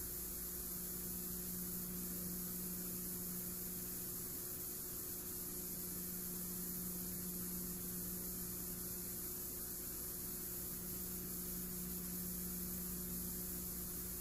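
Steady electrical mains hum under a constant layer of hiss, with no other sound: dead air on an old broadcast recording.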